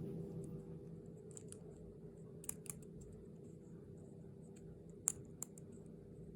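Scattered sharp clicks and taps from small plastic candy and toy packaging being handled, the loudest about five seconds in, over a faint steady hum.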